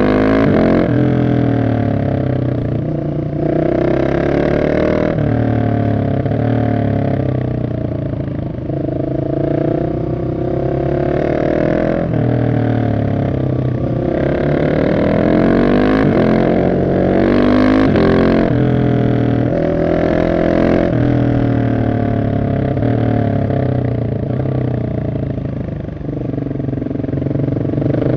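Husqvarna 701 SM single-cylinder engine running loud through an Arrow decat exhaust, its pitch rising under throttle and falling off again many times over as the bike accelerates and slows through a run of bends.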